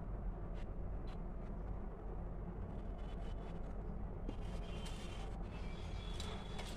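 Steady low background rumble with a few faint clicks, and some faint high-pitched sounds in the last two seconds.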